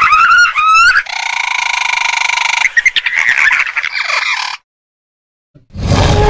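Dinosaur call sound effect: shrill squeals that slide up and down in pitch, then a long buzzing, croaking trill, then a few ragged calls that stop about four and a half seconds in. After a second of silence a deeper, rougher call begins near the end.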